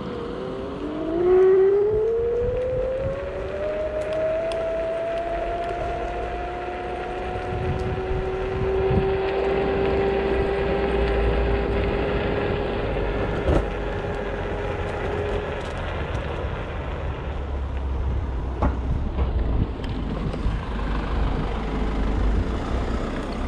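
Motor scooter engine accelerating: its hum rises in pitch over the first few seconds, then holds almost steady as the scooter rides on, and fades about two thirds of the way through. A steady low rumble lies underneath.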